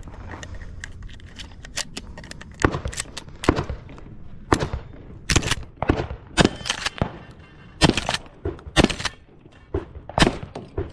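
Shotgun fired rapidly, about a dozen sharp reports at uneven spacing, some in quick pairs.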